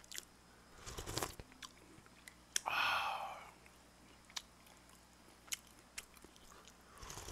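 Spicy udon broth slurped from a spoon and eaten close to a microphone: faint lip smacks and wet mouth clicks, with one longer slurp about three seconds in.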